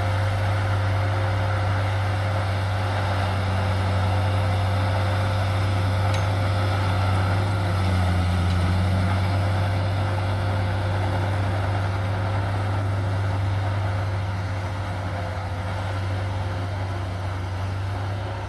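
A heavy machine's engine running steadily at constant speed: a deep, even hum with a thin steady whine above it.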